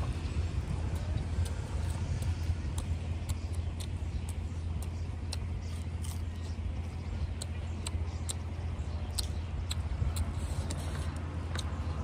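Close-up chewing and wet mouth clicks and smacks from eating by hand, many short sharp clicks at irregular intervals, over a steady low rumble.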